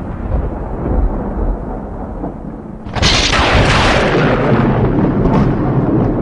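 Thunder: a low rumble, then about halfway a sudden loud thunderclap that cracks and rolls off slowly into rumbling.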